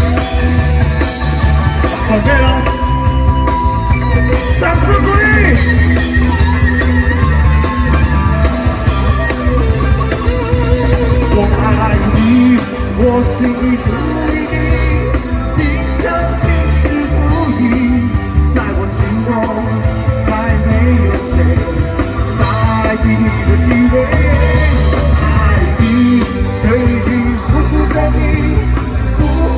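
Rock band playing live, loud and continuous, with singing over a heavy steady beat.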